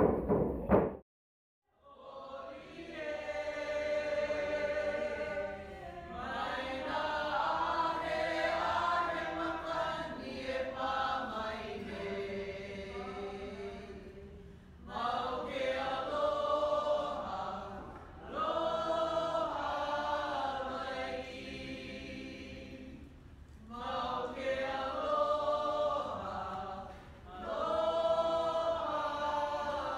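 Drum-backed music ends in the first second, and after a brief silence a group of voices sings a chant together in long phrases with short pauses between them.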